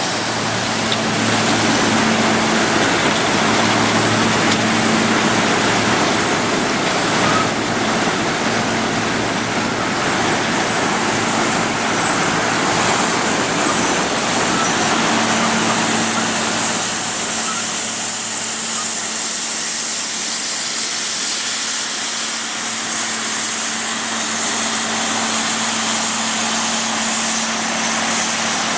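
Asphalt cold milling machine at work: a steady diesel engine hum under a continuous rough noise, with the low end easing a little past the middle.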